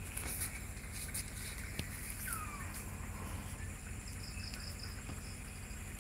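Outdoor forest ambience: a steady high insect chirring over a low rumble, with a few light clicks and one short falling call about two seconds in.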